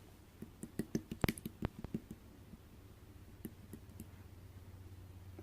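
A quick run of sharp clicks and light knocks in the first two seconds, with a few more later, over a low steady hum.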